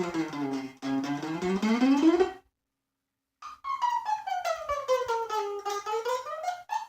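A plucked string instrument played as a scurrying sound effect: quick repeated picking while the pitch slides down and back up. There are two such sweeps with about a second of silence between them, and the second sweep is higher.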